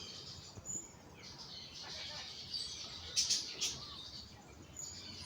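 Wild birds chirping and calling in the countryside, over a steady background hiss, with two sharp louder notes about three seconds in.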